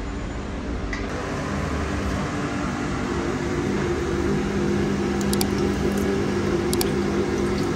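Steady mechanical hum of commercial kitchen equipment, with a few light clicks in the second half.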